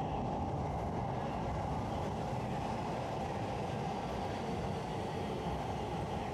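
Keio line electric train running along an underground station platform: a steady rumble of wheels on rails with a faint whine over it.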